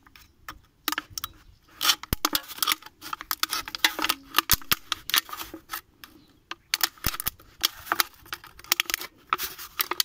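Small knife cutting around the top of an aluminium beer can: irregular sharp clicks and short scrapes as the blade works through the thin metal wall, with brief pauses between strokes.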